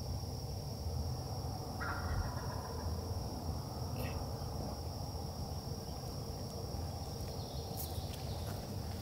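Osceola wild turkey gobbling once, faintly, about two seconds in, a short rattling call over a steady low rumble and a constant high insect hum. A few light clicks follow.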